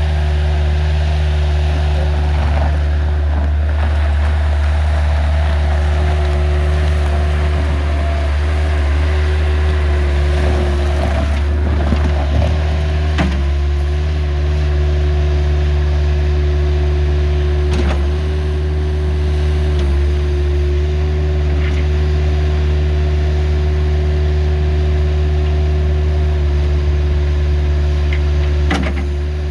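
Bobcat 753 skid steer's diesel engine running at a steady speed, with a few short knocks.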